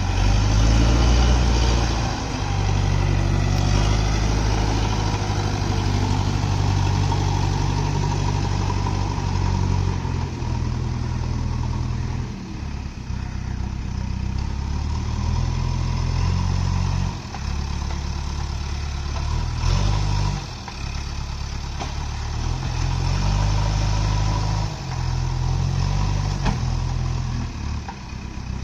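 Diesel engine of a JCB backhoe loader running, its note shifting up and down repeatedly as the machine works.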